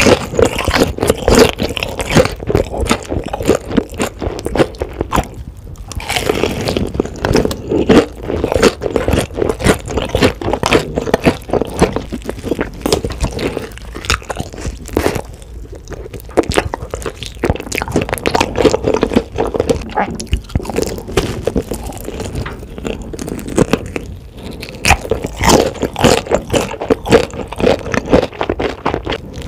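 Close-miked crunching and chewing of crispy-coated fried chicken: bites through the crackly breading, then wet, crisp chewing, a dense run of crunches broken by a couple of short pauses.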